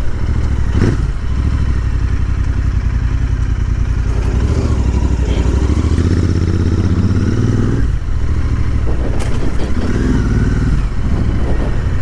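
Royal Enfield Interceptor 650's parallel-twin engine running at low speed under the rider. It pulls a little harder from about four seconds in and eases off near eight seconds, with a few brief knocks just after.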